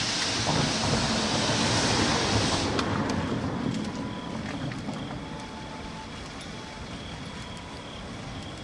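A steam locomotive, the D51 498, approaching slowly. It gives a loud, steady steam hiss over a low rumble, and the hiss cuts off sharply about two and a half seconds in. After that only a quieter rumble is left, with a faint steady high whine.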